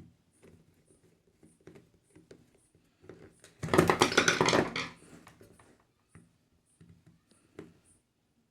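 Screwdriver tightening screws into a Bluetooth speaker's plastic casing: light scratchy clicks and scrapes, with a louder burst of rapid rattling clicks about three and a half seconds in that lasts about a second and a half.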